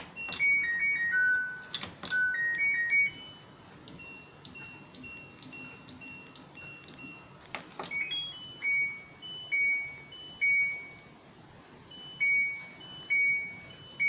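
An LG Inverter Direct Drive 9 kg front-loading washing machine's control panel sounding its electronic tunes: a falling four-note jingle, then a rising four-note jingle, then repeated short high two-note beeps, with a few sharp clicks from the controls. The repeating beeps go with the machine's DE1 door-open error.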